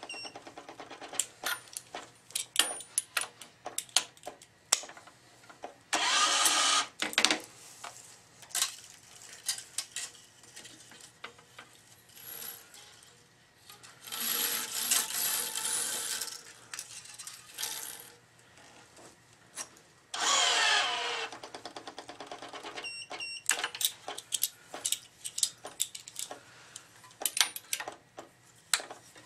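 Tennis racket being strung on a stringing machine: the string is pulled through the frame's grommets in a few long noisy draws, among many sharp clicks and taps of the metal clamps and the string against the frame.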